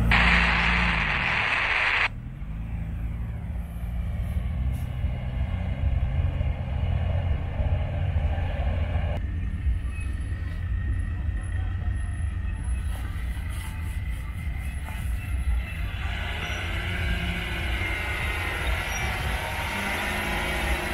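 Off-road 4x4 engines running at low revs as the trucks crawl down a steep slope: a steady low rumble. It is louder for the first two seconds and changes abruptly a couple of times.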